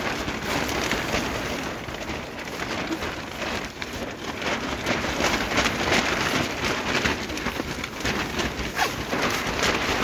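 Steady rain falling on a tent, heard from inside, with many separate drops striking the fabric.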